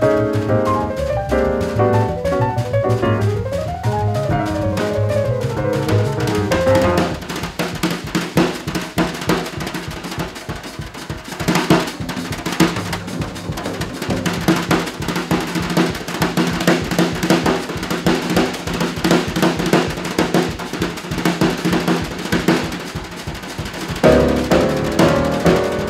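Jazz piano trio recording: piano runs over walking bass for about the first seven seconds. A drum solo on the kit follows, with rapid snare, tom and cymbal strokes. Piano and bass come back in near the end.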